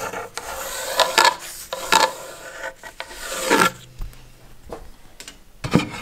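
Hexagonal pencil scratching along the edge of an oak board as it slides on the flat table saw top, scribing a straight line, in scratchy rubbing strokes for the first few seconds. A short knock comes near the end.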